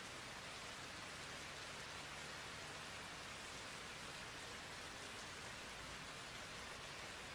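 Steady recorded rain ambience: an even hiss of rainfall, unchanging in level.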